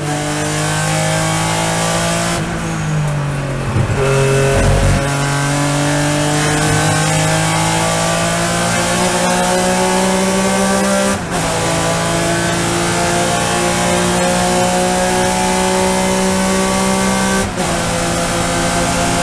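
Fearnsport-built racing engine heard from inside the cockpit under full acceleration, its pitch climbing steadily and dropping sharply at two upshifts, about 11 and 17 seconds in, with wind and road noise underneath.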